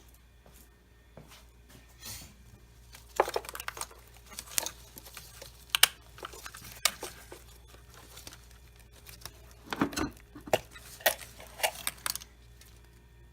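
Objects being handled: irregular clicks, light clatter and crinkling in two bursts, starting about three seconds in and again about ten seconds in, over a steady low hum.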